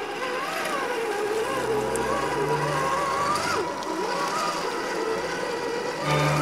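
Electric motor of a radio-controlled model whining, its pitch rising and falling with the throttle. Background music comes in near the end.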